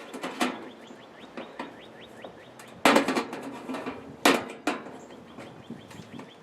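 Sharp knocks and clanks of tools against a toaster oven's sheet-steel casing as it is taken apart, the loudest strikes about three and four and a half seconds in, with runs of quick light ticks between them.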